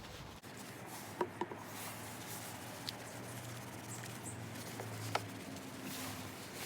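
Cloth rubbing and wiping the plastic door handle of a car with alcohol cleaner, with a few short clicks along the way.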